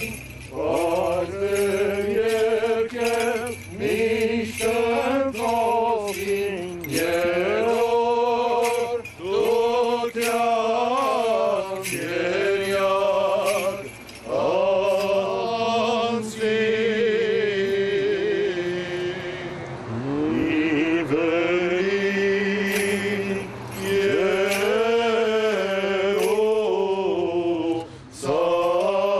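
Armenian church chant sung by the clergy: one ornamented melodic line with long held, wavering notes, broken every few seconds by short pauses for breath.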